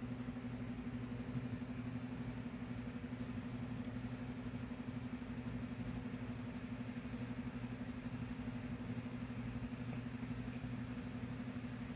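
A steady low hum, unchanging throughout, with a fine rapid flutter in it.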